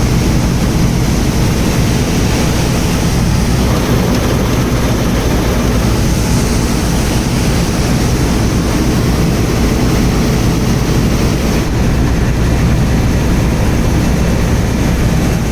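Combine harvester running steadily while cutting wheat: a loud, unbroken engine drone with the rush of the threshing machinery.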